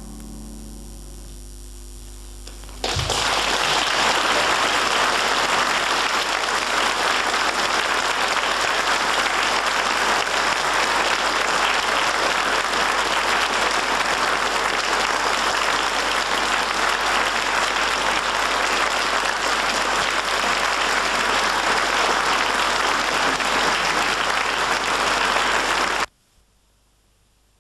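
The last piano notes of a song die away, then an audience bursts into steady applause about three seconds in, lasting over twenty seconds before the recording cuts off abruptly near the end.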